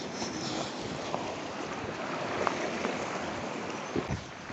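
Steady rushing of a river, with a few faint knocks.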